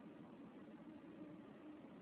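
Near silence: a faint, steady low hiss of background noise, with no distinct sounds.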